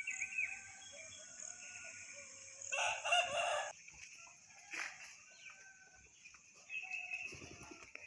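A rooster crowing once, about three seconds in, the loudest sound here, over a steady high-pitched hum in the first half and faint scattered chirps.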